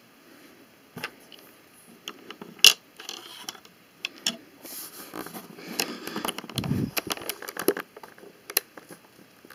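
Plastic Lego pieces of a homemade launcher clicking and scraping as it is loaded and adjusted by hand, with one sharp click about two and a half seconds in and a spell of rattling near the middle.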